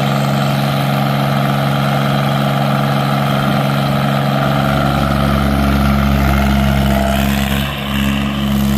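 Mighty Mac skid steer's engine running steadily, with a deeper low rumble joining about halfway through and a brief dip in level near the end.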